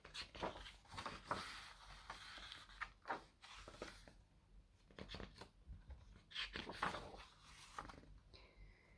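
Faint rustling with scattered small clicks and taps, at low level.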